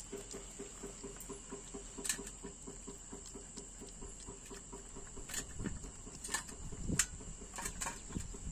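Newborn puppy suckling at its mother's teat: rhythmic little sucking pulses, about five a second, with a few sharper smacking clicks.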